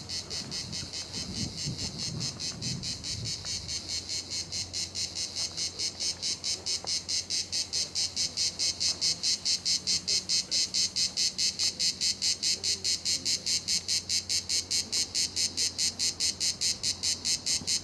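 Cicadas singing: a shrill, evenly pulsed chorus at about four to five pulses a second, growing louder about seven seconds in.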